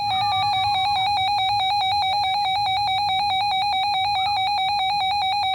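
Weather alert radio's built-in alarm sounding for an incoming warning: a loud, rapidly pulsing electronic beep at one fixed pitch, held steady over a faint low hum of radio noise.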